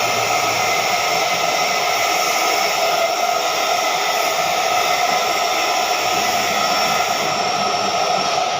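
TIG welding arc running steadily on a flange: a continuous hiss with a faint steady buzz that does not change.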